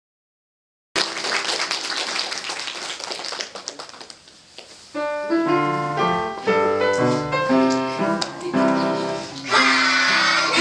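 Audience applause for a few seconds, then a piano introduction of chords and a melody; near the end children's voices join in singing.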